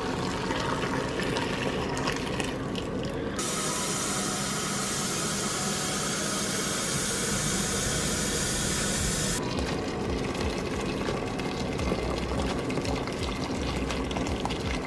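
Water pouring from an electric kettle into a pressure cooker pot of beef bones. About three seconds in, a kitchen tap runs into the kettle for about six seconds with a brighter, harder hiss, then the pouring into the pot goes on.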